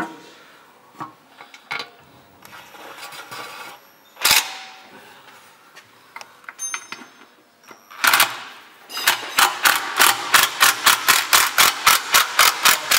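Cordless impact wrench on a car's subframe bolts: a sharp knock about four seconds in, the tool spinning a bolt about eight seconds in, then rapid rhythmic hammering, about four or five blows a second, as the bolt snugs up.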